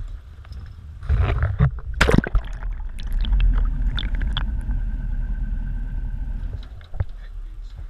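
A wire crab trap going overboard splashes into the water about two seconds in. Then come the muffled gurgling and low rumble of the water as it sinks on its rope, heard under water, with scattered small clicks.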